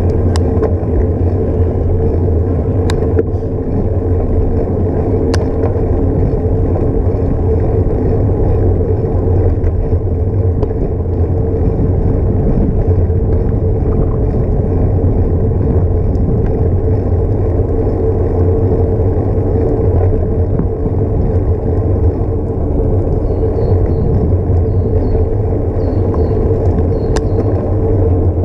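Wind and road rumble on a bicycle-mounted action camera while riding, a loud steady noise with a few sharp clicks from bumps.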